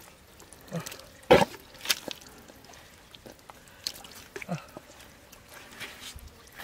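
Wet squelching and splashing of bare hands working in waterlogged mud, with a sharp slap about a second and a half in and a smaller one just after.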